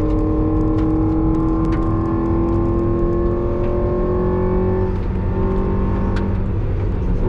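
Mazda NB Roadster's four-cylinder engine heard from inside the cabin at speed on track. It pulls with slowly rising pitch, then about five seconds in the revs drop sharply and it runs on at a lower, steady note.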